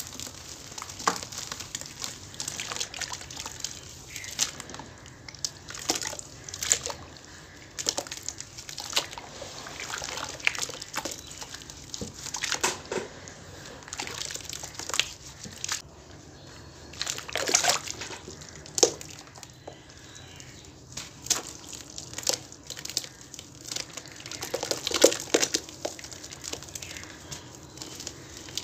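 Hands squeezing, kneading and crumbling wet cement and baking soda chunks in a tub of water, with irregular splashing, sloshing and dripping. Louder splashes come about two-thirds of the way through and again near the end.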